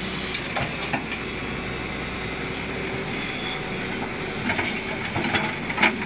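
Sany 210 hydraulic excavator working: its diesel engine runs with a steady drone and hiss, with several sharp knocks, the loudest near the end.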